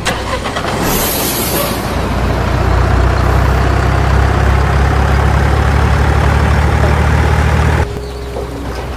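Heavy truck engine sound with a short air-brake hiss about a second in, then a steady low rumble that cuts off suddenly near the end.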